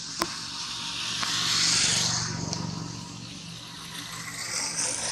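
A motor vehicle passing by: its engine hum and tyre noise grow to the loudest point about two seconds in, then fade. A sharp click comes just at the start.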